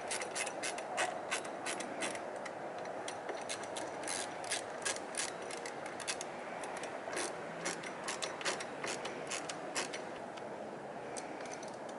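Hand ratchet clicking in irregular runs as bolts are loosened on a motorcycle handlebar mount clamp. The clicks thin out near the end.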